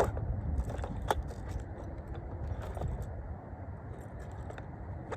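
Small metal fishing tackle being handled, likely the aluminium disgorger being fetched out: a sharp click at the start, another about a second in, and lighter clinks, over a steady low rumble.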